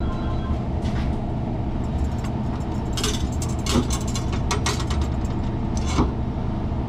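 Light metallic clicks and taps as a refrigeration expansion valve and its copper tubing are handled and fitted against the liquid line, over a steady low machine hum.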